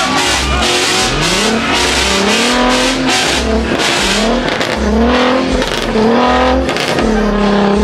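Car engine revving hard during a burnout, again and again. Each rev climbs over about a second and then holds, over the steady hiss of spinning tyres.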